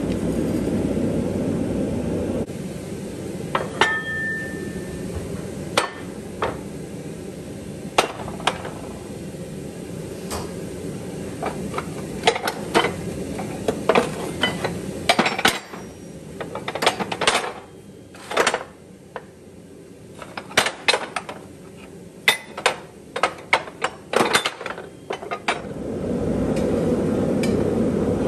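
Blower-fed propane forge running with a steady rush, which drops away after about two seconds. Then comes a long run of irregular, sharp metal-on-metal strikes and clanks as hot steel is worked with hand tools at a vise, one strike briefly ringing. Near the end the forge rush returns.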